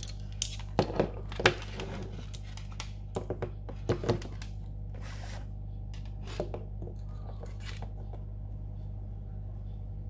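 Plastic central-lock door actuators being set down on a tabletop: a run of sharp knocks and clatters in the first four seconds or so, then a few softer taps.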